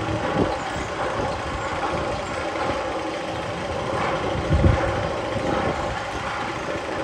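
Sound effect played in a roller-coaster tunnel: a steady, engine-like mechanical hum with a low thump about four and a half seconds in.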